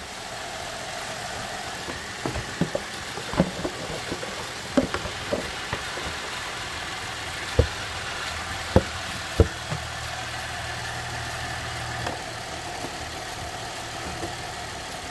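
Chevrolet Traverse 3.6-litre V6 idling steadily in the engine bay, with a series of sharp knocks and clicks as the plastic engine cover is fitted and pressed back onto its mounts.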